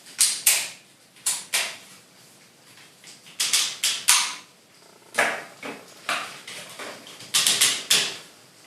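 Hard plastic parts of a transforming DX robot toy being handled: a run of sharp clicks and scraping knocks, many in quick pairs, as joints are turned and pieces pulled apart or snapped into place.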